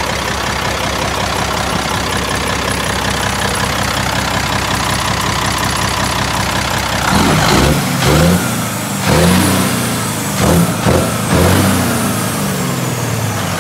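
Caterpillar C12 inline-six diesel truck engine idling steadily, then revved several times in quick blips from about halfway, the pitch rising and falling with each one; it runs smoothly, clean like a whistle.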